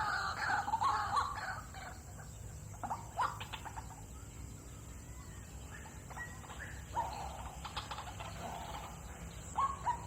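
Bird calls: a quick series of short falling calls in the first second or so, then scattered single calls and chirps.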